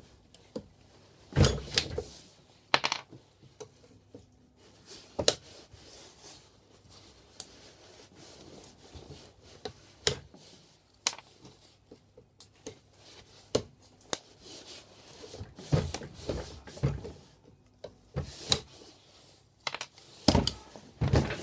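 Mole grips working on plastic mains plugs to pull out the brass pins: irregular clicks and knocks of metal on hard plastic, with scraping and rubbing between them.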